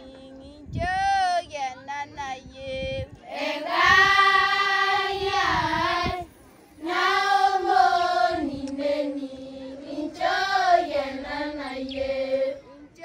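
Children singing a melody in high voices, with shorter phrases broken by two long held notes.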